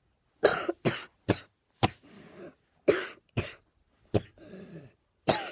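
A person coughing over and over: about eight sharp coughs in short groups of one to three, with noisy breaths between them.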